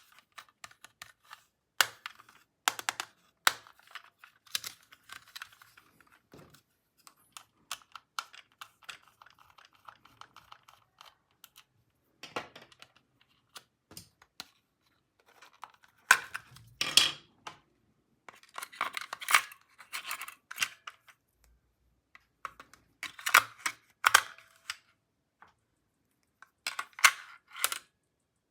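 Plastic toy pieces and packaging handled close to the microphone: irregular clusters of sharp clicks and taps, with a stretch of soft rustling about ten seconds in.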